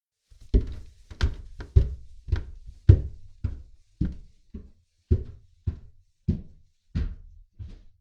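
Footsteps on indoor stairs: a steady run of about a dozen heavy, knocking steps, a little under two a second, starting about half a second in and growing slightly fainter toward the end.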